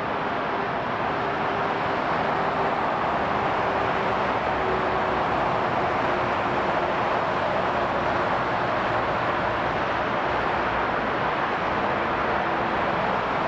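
Boeing 757-200 freighter's jet engines running steadily during a ground engine test: a constant rushing noise with faint steady hum tones.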